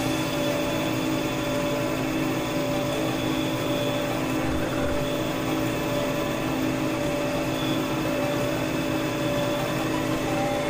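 Metal lathe running steadily, its motor and gearing giving a steady hum with a few held tones, while a grooving tool cuts cooling fins into a spinning aluminum bar.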